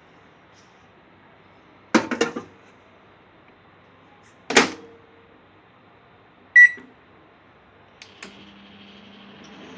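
Eslabón de Lujo microwave oven started for a test after repair: two loud clunks, a single short keypad beep, a couple of clicks about eight seconds in, then the oven starts running with a steady hum.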